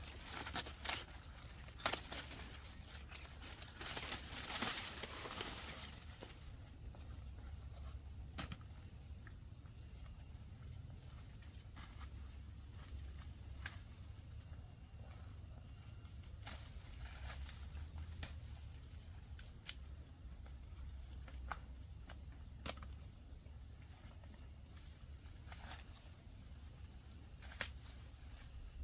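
Rustling and crinkling, like dry leaves or husks being handled, for the first several seconds. Then a steady high insect chirring with a few light clicks.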